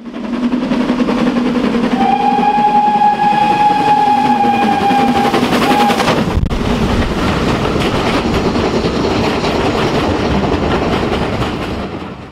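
Steam locomotive passing close by at speed, with its steam whistle sounding one long steady blast from about two seconds in to about five and a half seconds in. After a brief break around six seconds in, a dense rush of exhaust and train noise carries on, then fades away at the end.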